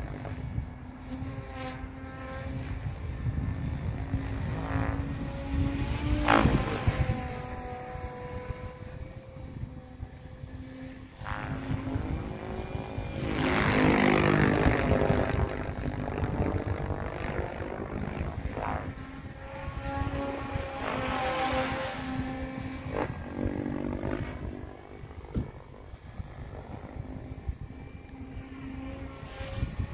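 Electric SAB Goblin RC helicopter in flight: a steady whine from its motor and rotor, with the rotor blades swelling to loud whooshing passes as it flies by, loudest near the middle.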